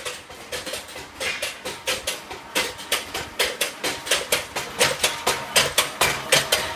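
Bench press in a firework rocket workshop knocking in a quick, even rhythm, about three strokes a second, which grow louder from a couple of seconds in.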